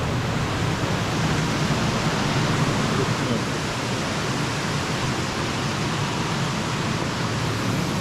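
Water jets splashing into an indoor spa pool: a steady rushing noise.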